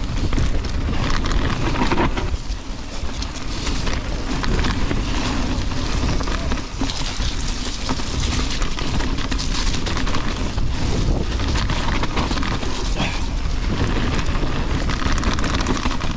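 Mountain bike descending a loose dirt-and-gravel trail at speed: wind buffeting the microphone over a steady crunch and crackle of tyres on stones.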